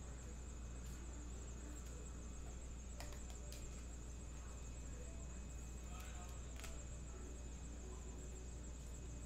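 Quiet room tone of a steady low hum and a thin high whine, with a few faint clicks from trading cards being handled.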